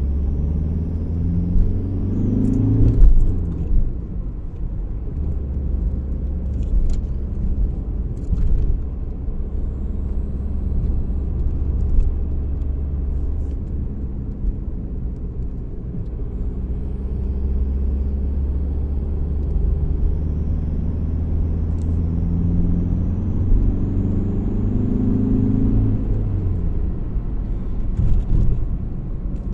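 VW Golf IV 1.9 TDI's four-cylinder diesel engine running under way, its pitch rising twice as it accelerates, with a faint high whistle that climbs along with the revs. The owner places the squeal and whistle around the EGR valve or turbocharger.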